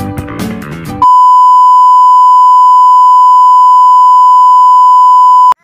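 Guitar music breaks off abruptly about a second in, replaced by a loud, steady electronic beep at a single high pitch, the standard censor-bleep tone. It holds for about four and a half seconds, then cuts off suddenly.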